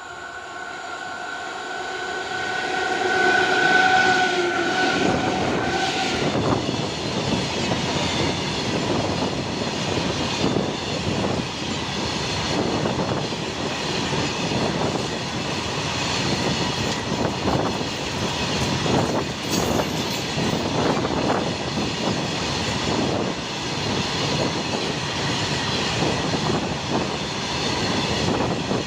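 An Indian Railways electric goods locomotive sounds a long horn blast as it comes up to the crossing, the horn's pitch sagging slightly as it passes and cutting off about six seconds in. The goods wagons then run past with a steady rumble and the clickety-clack of wheels over the rail joints.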